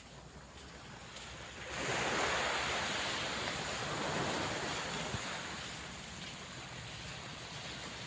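Surf on a sandy beach: a wave breaks about two seconds in, its wash swelling suddenly and then fading away slowly.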